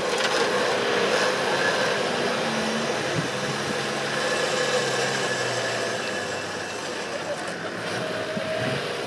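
Off-road vehicle engine running steadily under load while a stuck safari truck is hauled by tow cable out of a muddy stream crossing.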